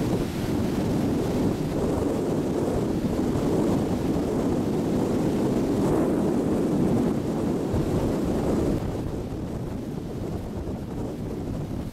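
Wind buffeting the microphone aboard a moving tour boat, a steady rushing that eases about nine seconds in.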